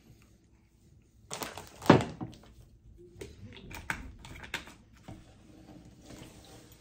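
A large plastic juice bottle is set down on a tabletop with one solid thunk about two seconds in, followed by a run of light clicks and ticks as its screw cap is twisted back on.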